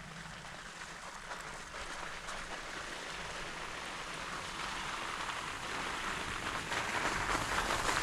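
Steady wet hiss of a Jeep driving a slushy trail, the tyres running through slush and water, growing steadily louder.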